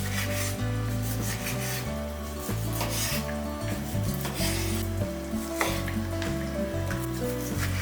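Food sizzling in a hot pan while being stirred, with repeated scrapes of a utensil against the pan, under soft background music with a steady bass line.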